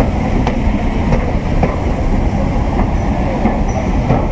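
A train running along the track: a steady rumble with a few sharp clicks of the wheels over rail joints.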